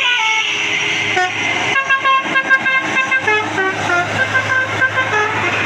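Multi-note 'telolet basuri' horn on an Indonesian tour bus playing a quick tune of short stepped notes, busiest from about two seconds in. A steady low hum runs underneath.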